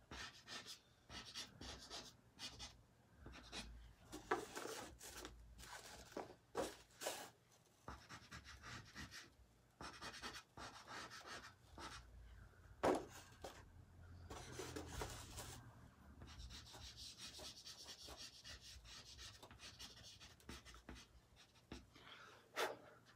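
Faint soft-pastel sticks scratching and rubbing across textured pastel paper in short, irregular strokes. From about halfway through, the strokes run into a longer stretch of steady rubbing.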